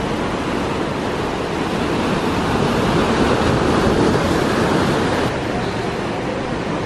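Sea waves breaking and washing over shoreline rocks in a continuous surf, swelling louder about halfway through.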